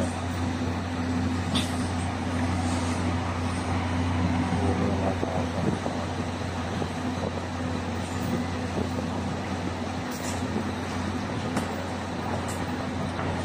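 Concrete mixer truck's diesel engine running steadily with a low, even drone, with a few faint knocks now and then.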